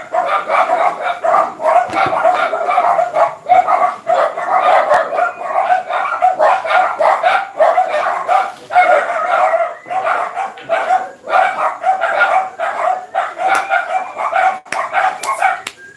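A dog barking rapidly and without a break, several high barks a second. A few sharp clicks come near the end.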